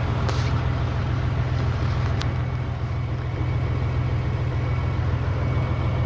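Heavy truck's diesel engine idling with a steady low rumble while the truck stands still, with a single sharp click about two seconds in.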